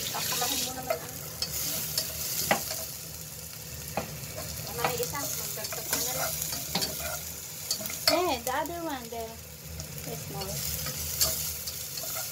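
Aromatics (chopped ginger, garlic and onion) frying in a small nonstick saucepan with a steady sizzle, stirred and scraped with a slotted spatula that clicks irregularly against the pan. A brief wavering squeal about eight seconds in.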